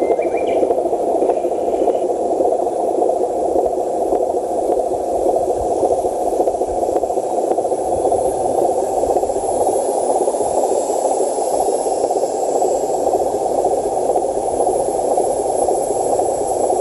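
Steady running noise of a homemade radio-controlled Hino 500 dump truck driving loaded over sand: an even, unchanging whirr with no distinct pitch.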